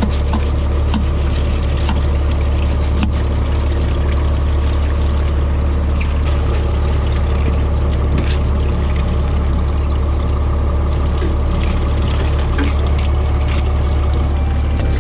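Fishing boat under way: its engine runs with a steady low drone while water rushes and splashes along the hull.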